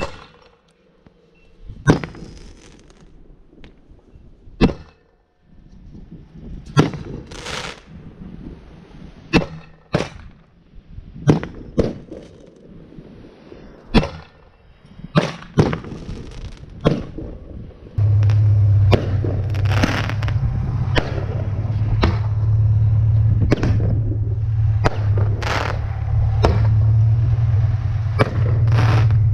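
Fireworks tube mounted on a homemade machine firing shot after shot, around twenty sharp pops spaced a second or two apart, some with a brief hiss after them. About two-thirds of the way in, a loud steady low hum starts and runs under the continuing shots.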